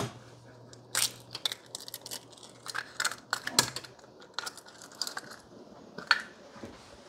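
Eggs frying in unsprayed nonstick skillets: a sharp crack at the start as an egg is broken, then scattered crackles and pops over a faint hiss. A faint steady hum lies under the first half.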